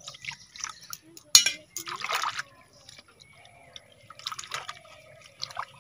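Water splashing and sloshing in an earthenware pot as cut pieces of freshwater fish are washed by hand, with a sharp clink about a second and a half in.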